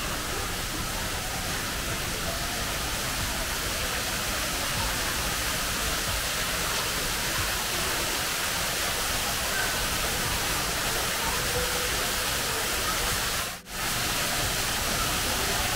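Artificial rock waterfall pouring into a swimming pool: a steady rush of falling, splashing water that drops out for a moment near the end.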